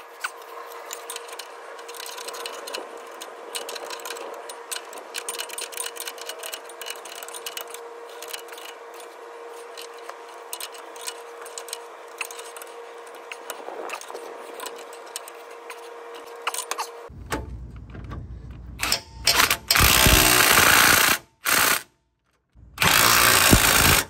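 Cordless impact wrench hammering in several loud bursts with short breaks between them near the end. Before that, a long quieter stretch of light metallic clicking from hand tools being worked under a faint steady hum.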